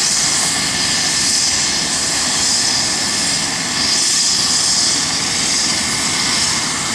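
Air-ambulance helicopter on the ground with its turbine engines running: a steady, loud, high-pitched rushing whine.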